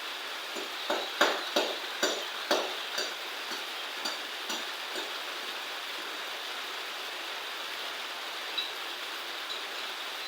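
A quick run of sharp knocks and clinks, some ringing briefly, over a steady hiss, dying away after about five seconds.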